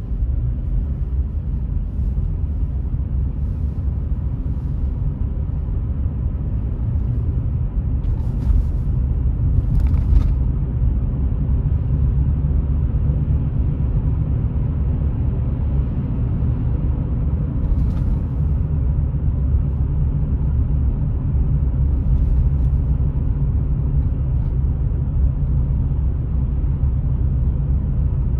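Steady low rumble of a car driving along a city street, heard from inside the car: engine and tyre noise on the road, with a few short rattles about eight, ten and eighteen seconds in.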